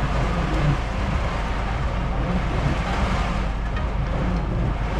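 Heavy rain beating on a truck cab's windshield and roof, a dense steady hiss that swells for a moment in the middle, with the truck's engine running low underneath, heard from inside the cab.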